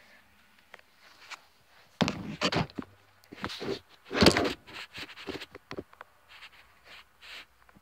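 Knocks, thumps and scrapes of the 8mm film projector being handled and set in place, starting about two seconds in, loudest a little past four seconds, then a few lighter clicks.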